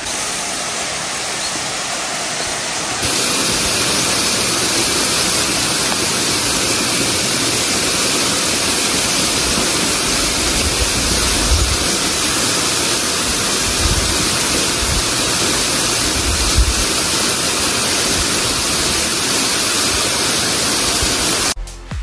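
Waterfall's steady rush of falling water, a dense even hiss that gets louder about three seconds in.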